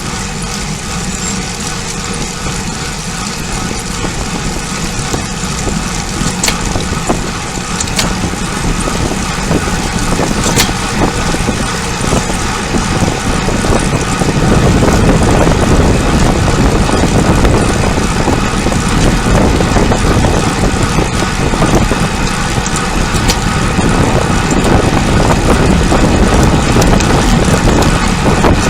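Wind rushing over the microphone of a camera riding on a moving road bike, with road noise. It grows louder about halfway through as the speed picks up.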